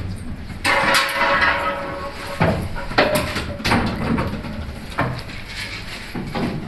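Clattering and several sharp knocks as litter, such as cans and bottles, is handled and picked up off a stage floor. A longer rattling clatter comes about a second in.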